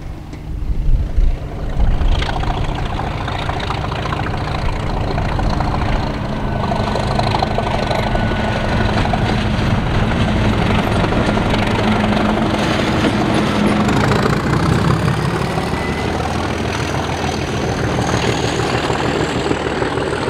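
A train running close by: a low rumble, then a broad rushing noise from about two seconds in that holds steady, with a few faint thin squealing tones over it.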